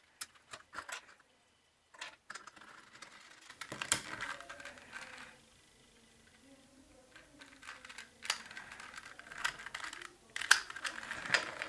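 Plastic 3x3 speedcube, a Dayan Alpha, turned and handled by hand: runs of quick plastic clicks and clacks as the layers rotate, with short pauses between.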